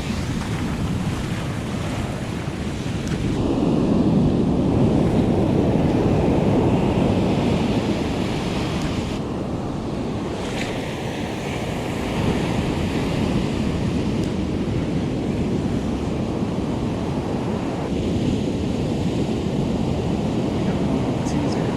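Ocean surf breaking and washing up a beach, with wind buffeting the microphone. The waves swell louder a few seconds in and again about halfway through.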